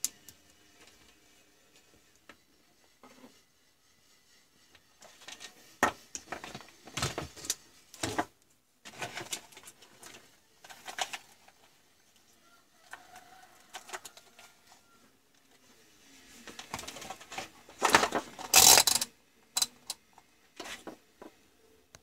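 Small tools and parts being handled on a workbench: irregular clicks, taps and light rattles in short clusters, loudest near the end.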